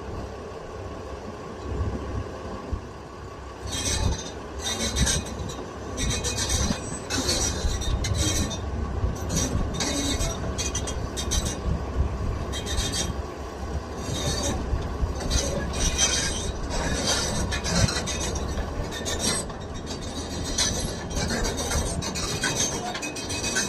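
Excavator running with a steady low engine rumble, joined about four seconds in by repeated, irregular bursts of high-pitched metallic squealing and scraping.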